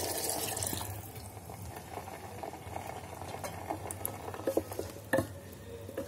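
Water poured into hot masala in an electric kettle's steel pot, hissing loudest for about the first second, then settling into a quieter steady simmering. A few light knocks of a wooden spatula against the pot come near the end.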